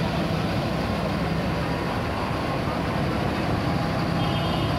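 Mercedes-Benz OH 1626 coach's diesel engine running with a steady low drone as the bus pulls slowly away.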